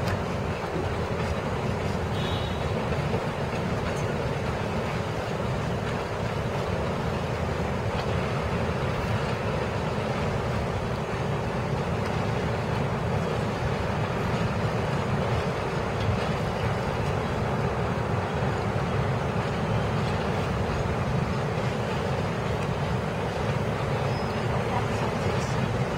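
Budd-built R32 New York City subway cars running past on the track: a steady rumble of the train in motion, with no horn, braking or distinct clanks.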